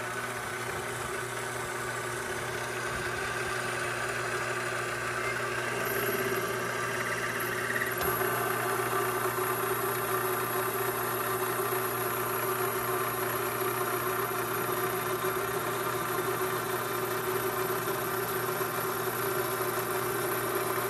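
Vevor benchtop mini lathe running, its motor and spindle humming steadily as the chuck turns a small bar workpiece. About six seconds in a high whine joins, and about two seconds later the sound grows a little louder and stays so, as the machining goes on.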